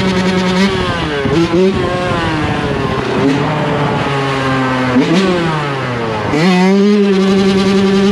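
Yamaha YZ125 single-cylinder two-stroke dirt bike engine running at high revs. The revs drop and swoop back about a second in, settle lower for a few seconds, then climb back to the high steady pitch near the end.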